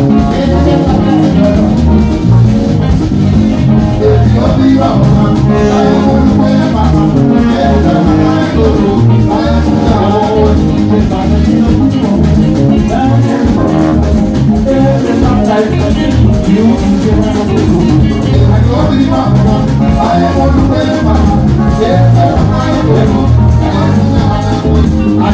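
Live kaseko band playing an up-tempo number, with drum kit, sousaphone, bass guitar and horns, and a singer at the microphone.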